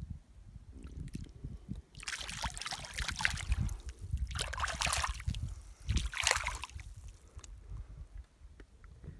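Water sloshing and splashing around a bare foot wading in shallow water over stones, in three bursts about two, four and a half and six seconds in, over a low rumble on the microphone.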